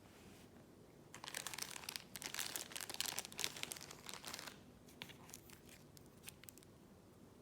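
Plastic wrapping crinkling and tearing for a few seconds, starting about a second in, followed by a few light clicks and rustles.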